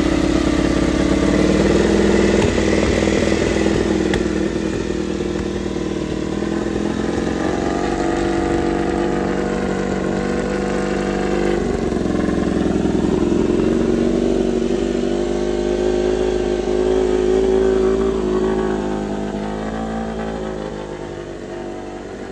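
Honda RC213V-S V4 engine running on its first start after assembly. The engine speed rises and falls slowly several times as the throttle is worked, then settles lower and quieter near the end.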